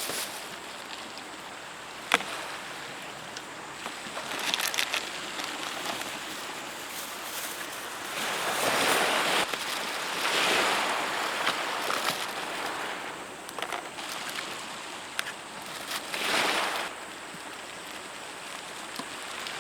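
Waves washing onto a beach, swelling and fading every few seconds, with a sharp click about two seconds in and a few lighter knocks.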